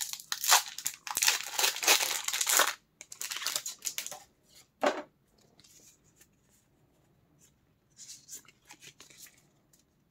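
Foil booster pack of Pokémon cards being torn open and its wrapper crinkled, in a run of rips and rustles over the first four seconds or so, then quieter, scattered rustling.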